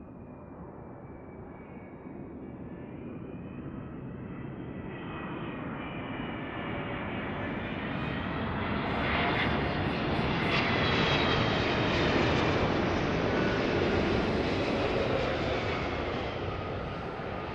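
A Boeing 777-200's twin jet engines on landing approach, a rumble with a whine on top. It grows louder as the airliner comes in, is loudest as it passes, then fades with the whine dropping in pitch.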